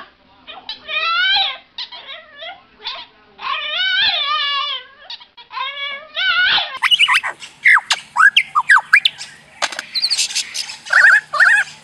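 A dog howling and whining in drawn-out calls that waver up and down in pitch. About two-thirds of the way through, another animal takes over with rapid clicks and short squeaky chirps that drop in pitch.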